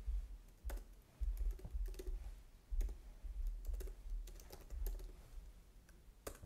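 Typing on a computer keyboard: irregular keystrokes as a terminal command is entered, with a sharper key press near the end.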